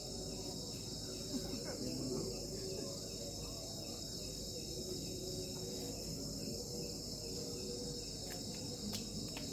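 A chorus of crickets chirping, a steady high-pitched trill that carries on without a break.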